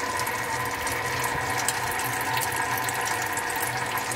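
Japanese lathe's open headstock gearbox running: gears and shafts turning with a steady mechanical hum while pump-fed lubricating oil streams from the oil lines and splashes over the gears. The oil pump is feeding normally.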